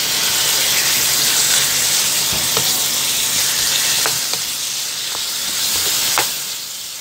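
Chunks of raw pork belly sizzling in hot oil in a nonstick pan as they are sautéed and stirred with a wooden spatula, with a few light knocks. The sizzle is loudest in the first seconds and eases near the end.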